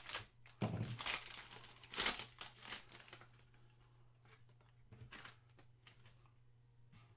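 Foil wrapper of a trading-card pack being torn open and crinkled, with a run of sharp crackles over the first three seconds. After that come fainter rustles as the cards are slid out and handled.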